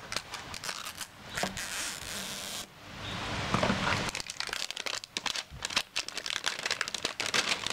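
Plastic wrapping crinkling and tearing as it is peeled off a large plastic toy teacup, in irregular crackles, with one longer tear that stops abruptly a little over two and a half seconds in.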